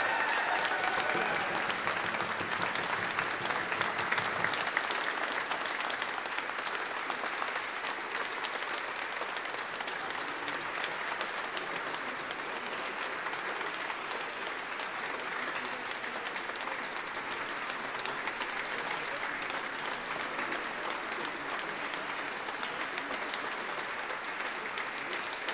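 Audience applauding, a little louder in the first few seconds, then steady.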